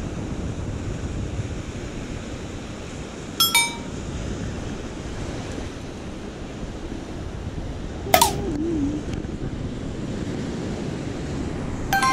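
Steady surf breaking on a sandy beach with wind. Three short ringing, chime-like sounds cut through it: a cluster of bright tones about three and a half seconds in, a falling, wobbling sliding tone about eight seconds in, and a ringing chord at the very end.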